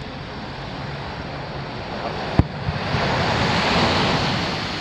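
Surf washing on a sand beach, with a distant firework shell bursting in one sharp boom about halfway through and a couple of small pops after it. A wave then breaks and swells louder near the end before easing off.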